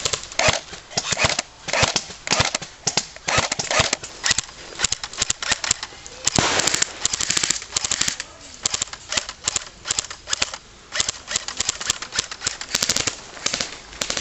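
Airsoft guns firing in repeated rapid bursts and short strings of shots, a sharp clattering gunfire; the longest, densest burst comes about six seconds in.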